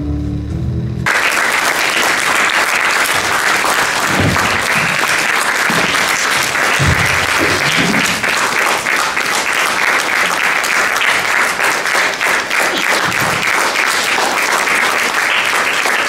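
Music ends about a second in, and an audience breaks into sustained applause.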